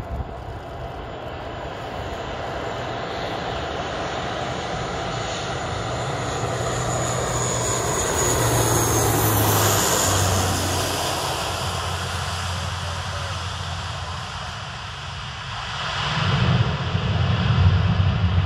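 Alenia C-27J Spartan with its Rolls-Royce AE 2100 turboprops flying low overhead with its landing gear down. The propeller and turbine noise builds, with a high whine that falls in pitch as it passes about nine seconds in, then eases. About sixteen seconds in a louder low rumble sets in.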